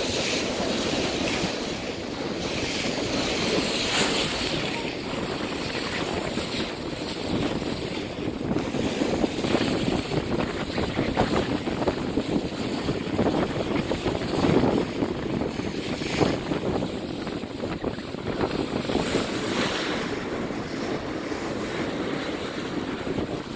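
Wind buffeting the microphone over a steady wash of sea water against a boat's hull, rising and falling in gusts.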